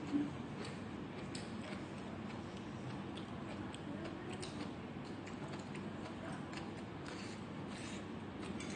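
Faint steady room noise with small clicks scattered at uneven intervals, and one brief louder knock right at the start.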